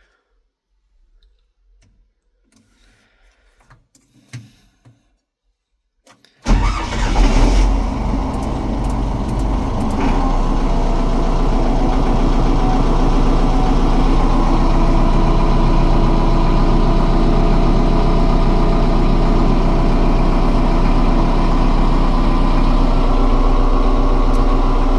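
The homemade locomotive's diesel engine starts about six seconds in, after a few faint switch clicks. It catches at once and runs unevenly for a few seconds, then settles into a steady idle.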